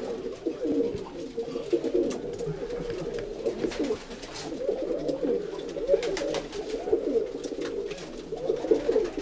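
Several racing pigeons cooing, the coos overlapping one another without a break, with a few light clicks among them.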